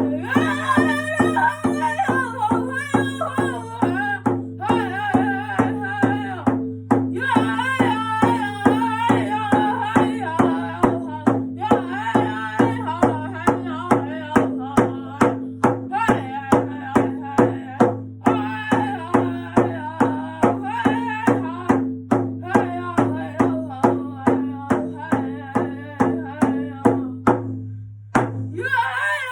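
Powwow-style singing over a steady, even drumbeat. The drum and the song stop shortly before the end, and a voice follows.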